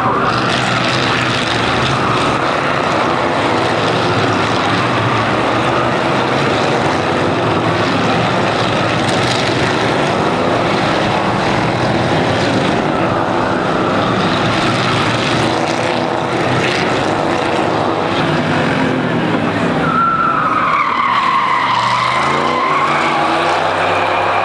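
A pack of Chevrolet Camaro and Pontiac Firebird V8 race cars running hard through a corner, many engines sounding together. About twenty seconds in, tyres squeal with a falling pitch as one car spins, then a single engine revs up near the end.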